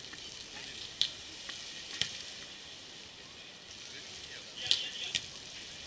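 Sharp slaps of hands striking a beach volleyball during a rally: one about a second in, another a second later, and two more near the end, over a steady outdoor hiss.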